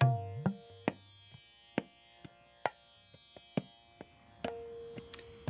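Soft background music: sparse plucked and struck notes, each ringing on briefly, with a held drone note entering about four and a half seconds in.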